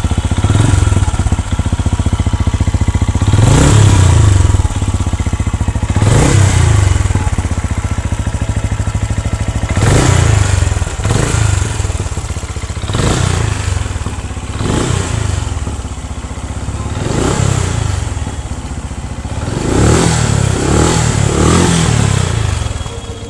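Benelli Imperiale 400's single-cylinder engine idling through its exhaust, blipped repeatedly with the throttle; each rev rises and falls back to idle.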